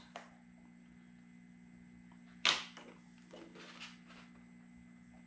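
Faint handling noise of a plastic screen protector film being lined up and pressed onto a touchscreen panel: one brief sharp rustle about two and a half seconds in and a few softer ones after it, over a steady low hum.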